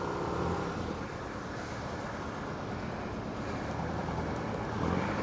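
The Rusi ADX150's 150cc liquid-cooled engine running at low speed, with steady street traffic around it. A faint engine hum is clearest in the first second.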